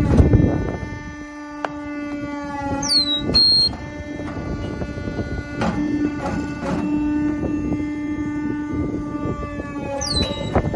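POR Bricc Junior Etienne sawdust briquetting machine running with its 5.5 kW main motor: a steady pitched hum with knocks and clicks. A brief high falling squeal comes about three seconds in and again near the end.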